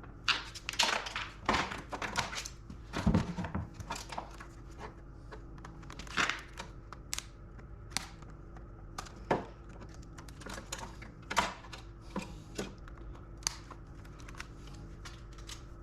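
Irregular clicks, taps and knocks of metal parts and hand tools being handled while a steel equipment control panel is dismantled. They come thick in the first few seconds, then thin out to scattered single clicks.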